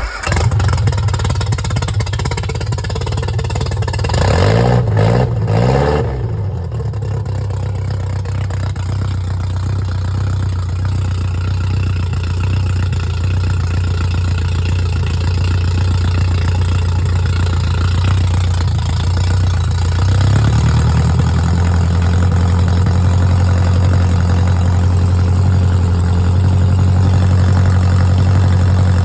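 Freshly rebuilt Triumph Spitfire 1296 four-cylinder engine starting and running: it catches right at the start, is revved up and down briefly about five seconds in, settles to a steady run, then is sped up to a higher steady speed about twenty seconds in.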